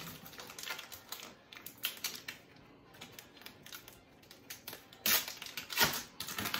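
Cardboard package being handled and opened: a run of light clicks, taps and rustles, turning into louder scraping rustles of cardboard in the last second and a half.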